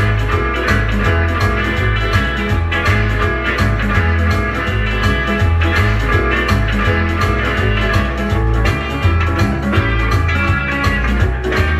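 Early rock and roll record playing: electric guitar over a stepping bass line and drums, on a steady beat.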